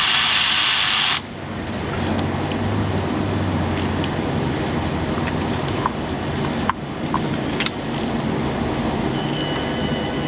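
A loud hiss cuts off about a second in. Steady shop background hum follows, with a few light clicks. Near the end a telephone starts ringing with a high electronic tone.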